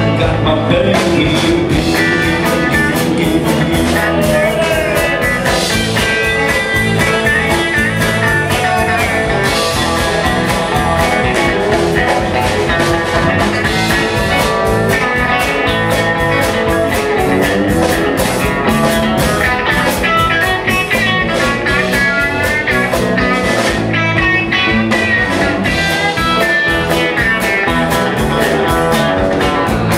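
A live country band jamming with several electric guitars and drums, the lead guitar playing bending lines over a steady beat.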